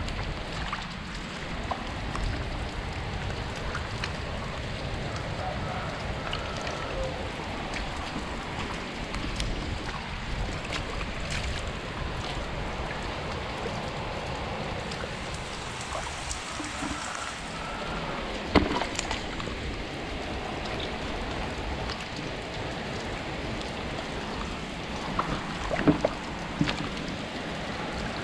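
Steady rain falling on shallow flowing water. A few sharp splashes come about two-thirds of the way through and again near the end, as a hand grabs at fish in the water.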